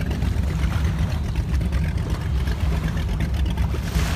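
A speedboat's inboard engine running at low speed, a steady low rumble. A short hissing rush comes near the end.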